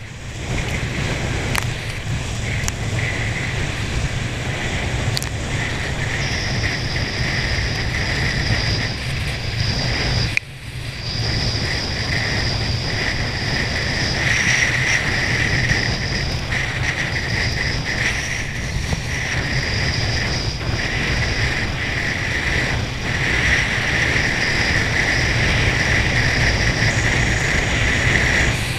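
Steady rush of wake water and wind at speed, over a low drone with a steady high whine; it cuts out briefly about ten seconds in.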